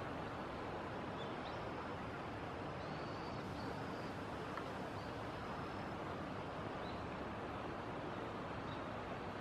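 Steady rush of a shallow stream flowing over rocks, with faint, high, thin chirps of a small bird scattered through it.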